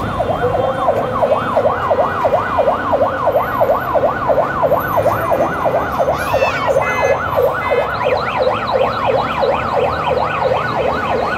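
Electronic siren in a fast yelp, its pitch sweeping up and down about four times a second. A second, higher siren joins about two thirds of the way through, over the noise of street traffic.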